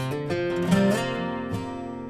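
Acoustic guitar music: picked notes ringing on, with a few strummed chords.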